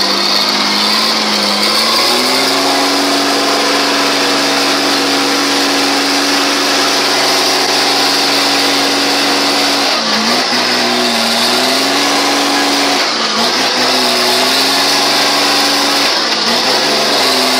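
Mercedes-Benz truck's diesel engine revving hard and held at high revs, straining to pull the loaded truck through deep mud. The revs dip and climb back three times, near the middle, past two-thirds and near the end.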